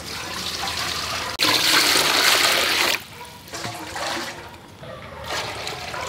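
Water poured from a plastic dipper into a large aluminium cooking pot, splashing and gushing. The loudest pour begins suddenly about a second and a half in and lasts about a second and a half.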